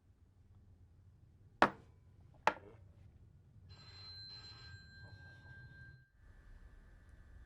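Two sharp bangs nearly a second apart, then a steady high-pitched ringing tone over a pulsing hiss, which shifts to a lower steady tone about two-thirds of the way through.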